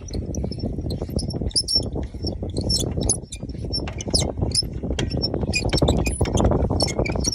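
Camper trailer's jockey wheel being wound by its hand crank: a continuous run of small clicks and scraping. Birds chirp in short high calls over it.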